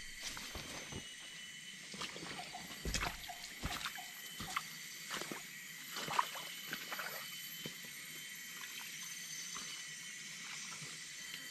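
Footsteps of someone in rubber boots wading through a shallow stream, a run of irregular splashing steps from about two to seven seconds in, over a steady high-pitched drone typical of jungle insects.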